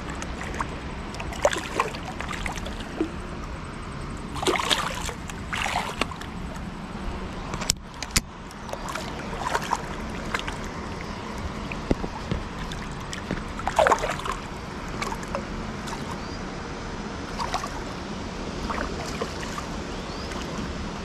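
Steady low rush of flowing river water with intermittent splashes and sloshing near the bank, the loudest a few seconds in and again about two-thirds of the way through.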